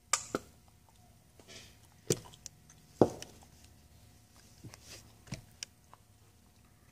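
Handling noise on a handheld phone's microphone: scattered short clicks and knocks, the loudest about two and three seconds in, over a faint steady room hum.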